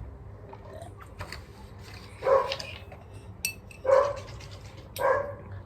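A dog barking three times, short barks spaced a second or two apart in the second half.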